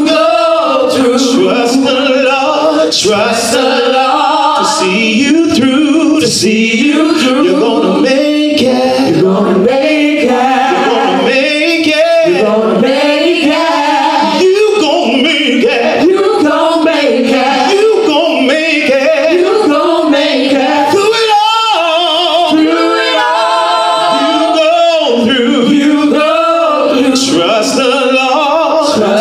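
A gospel praise team of male and female singers singing together in harmony into microphones, with long held and bending notes.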